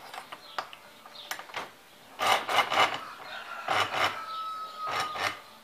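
A car starter motor's metal housing is shifted in a bench vise and the vise handle is worked: a few sharp metal clicks, then three short rasping scrapes, the loudest about two seconds in.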